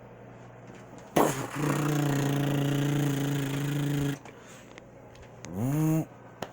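A person making vocal sound effects with the mouth: a sharp burst about a second in, then a steady low hum held for about two and a half seconds, and a short rising whoop near the end.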